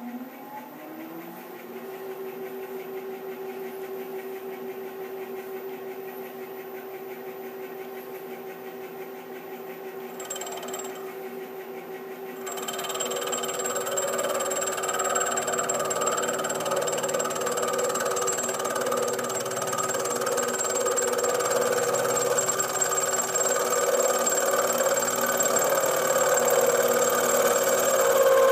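Milling machine spindle spinning up with a rising whine, then running steadily at about 500 RPM as a long left-hand-helix end mill takes light cuts in the tailstock casting. About twelve seconds in, the cut gets louder and the cutter starts singing a little as it crosses the wider part of the face, a sign of light chatter from the long cutter at that speed.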